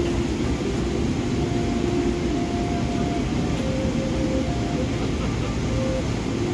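Steady roar of a jet airliner's cabin noise in flight, with a few faint held tones above it.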